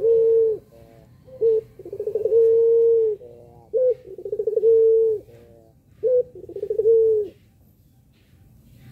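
Puter pelung ringneck dove cooing in its bow-coo display. Three phrases about two seconds apart follow the tail of one already under way. Each is a short note, then a quick pulsing lead-in to a long, drawn-out low coo. The coos stop near the end.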